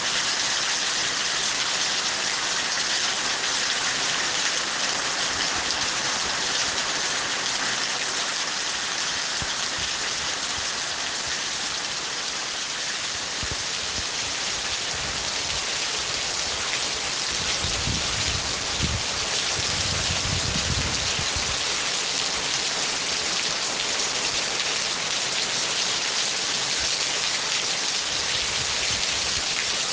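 Steady rain falling, an even hiss, with a low rumble for a few seconds about two-thirds of the way through.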